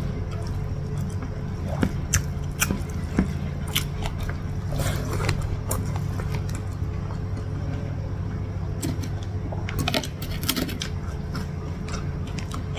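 Close-up mouth sounds of someone eating rice and egg sambal by hand: wet chewing clicks and lip smacks, clustered around two, five and ten seconds in, over a steady low hum.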